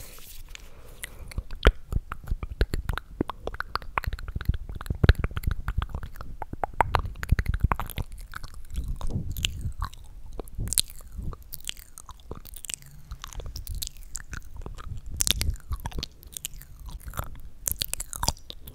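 ASMR mouth sounds recorded close to the microphone: a fast, irregular string of mouth clicks and smacks that never stops.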